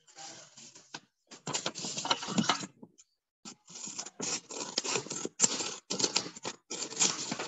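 Sheets of coloured paper being handled and rustled, in irregular bursts with a brief pause about three seconds in.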